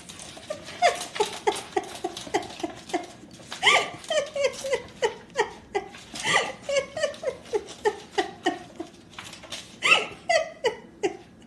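An animal calling over and over in short yelps that fall in pitch, about three a second, with a few louder, higher calls about four seconds in and again near the end.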